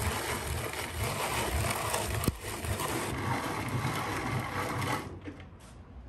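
Hand-cranked rotary drum grater grinding hazelnuts onto a metal tray, a steady crunching with a pulse at each turn of the handle; the grinding stops about five seconds in.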